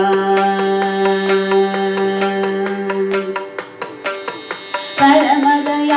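Carnatic vocal music in Varali raga with percussion accompaniment. A woman's voice holds the last note of a phrase for about three seconds while a drum keeps a steady beat. After a short gap with only the percussion, the singing resumes near the end.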